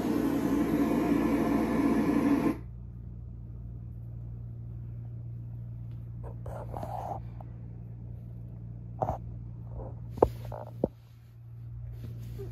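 A loud, steady rushing noise that cuts off abruptly about two and a half seconds in, leaving a quiet room with a low steady hum. A few faint soft sounds follow, then three sharp clicks near the end.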